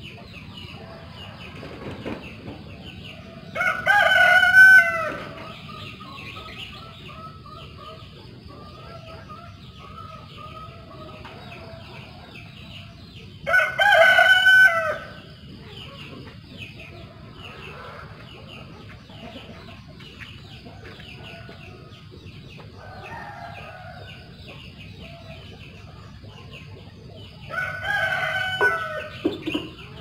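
A rooster crowing three times, each crow about a second and a half long and roughly ten seconds apart, with faint bird chirps in between.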